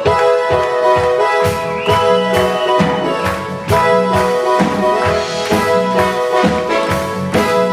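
Live band playing an upbeat instrumental passage: sustained keytar chords with electric guitar over a steady drum beat of about two hits a second. A single high note is held for about a second near the start.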